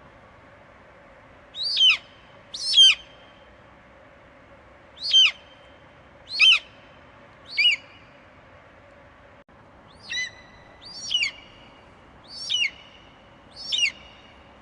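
Eagle screeching: nine short, shrill calls, each falling steeply in pitch, spaced one to two seconds apart over a faint steady hum.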